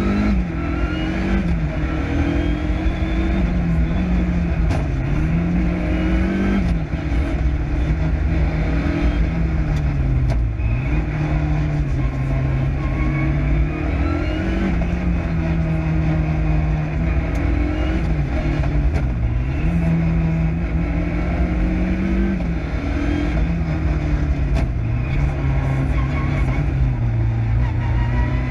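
Lancia Delta Integrale Group A's turbocharged four-cylinder engine driven hard, heard from inside the cabin: the revs climb and fall again and again, with sharp drops at lifts and gear changes.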